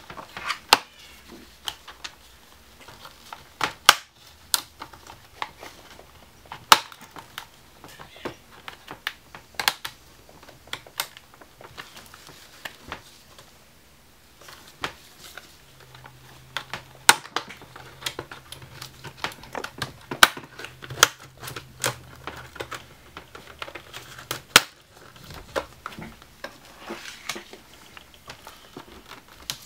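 Plastic snap clips of the Asus X54C's LCD bezel popping loose as the bezel is pried off the screen lid by hand. Irregular sharp clicks and crackles of plastic come one after another.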